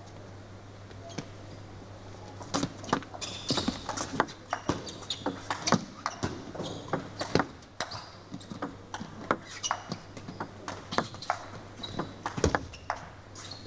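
Table tennis ball clicking off the rackets and the table in a long back-and-forth rally. The sharp clicks start a couple of seconds in and come irregularly, one or two a second.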